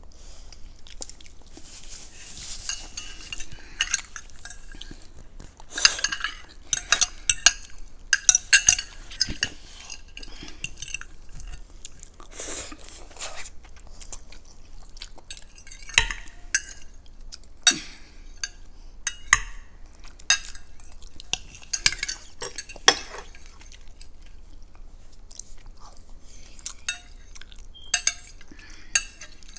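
Metal forks and spoons clinking and scraping against a ceramic plate and glass bowls during a meal, in irregular clicks that come thickest about six to nine seconds in, with some chewing between.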